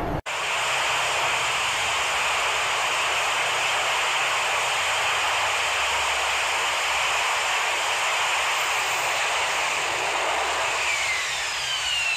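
AV-8B Harrier's Rolls-Royce Pegasus turbofan running loud and steady as the jet hovers and sets down vertically, with a few whines falling in pitch near the end.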